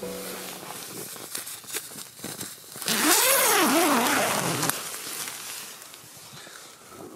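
Tent fabric rustling and crinkling with small clicks. Then, about three seconds in, the tent door zipper is pulled open for nearly two seconds, its pitch rising and falling several times.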